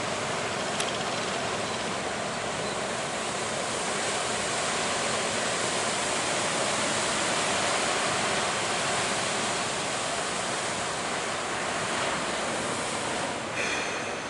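Ocean surf breaking, a steady rush of waves that swells slightly partway through. A short high-pitched sound comes near the end.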